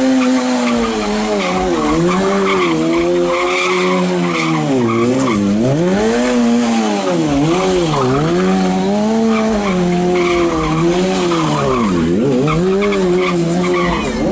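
Sport motorcycle engine held at high revs during a burnout, its pitch dipping sharply and climbing back again several times. The rear tyre spins and skids on the asphalt with a hissing squeal.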